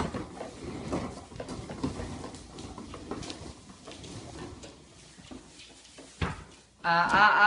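Hard plastic wheels of a toddler's ride-on toy car rolling across the floor: an uneven rumbling with small rattles. There is a single sharp knock about six seconds in, and a loud voice near the end.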